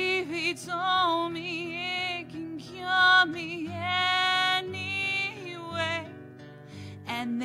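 A woman singing a slow song over her own guitar accompaniment, the vocal line held and wavering over repeated chords.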